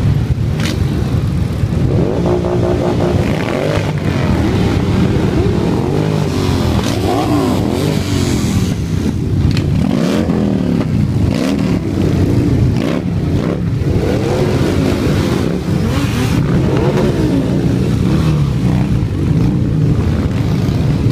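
A column of motorcycles riding past at low speed, many engines running at once, their pitches rising and falling as bikes come by and rev.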